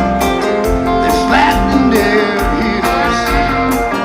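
Loud band music in a country-rock style: guitar and a steady drum beat, with a voice gliding between notes.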